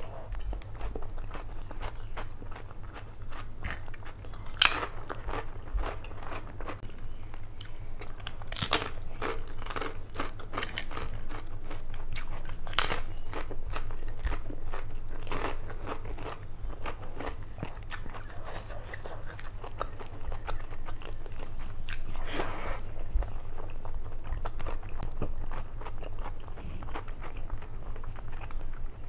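Close-miked chewing of mutton biryani: a steady run of small wet mouth clicks and smacks, with fingers working the rice on the plate, and a few louder sharp crunches standing out.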